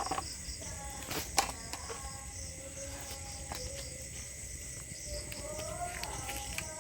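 Rural outdoor ambience: a steady high-pitched drone of insects, with faint wavering calls, likely birds, and a few short clicks.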